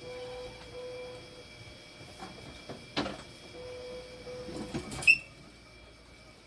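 Hemodialysis machine running, with a hum that starts and stops and a steady faint high whine, while a couple of sharp clicks sound, the louder one about five seconds in.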